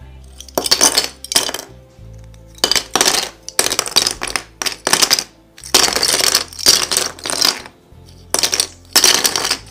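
Small plastic pencil sharpeners with metal blades clattering onto a wooden surface as they are dropped in handfuls onto a pile, in about six short bursts of rapid clicks.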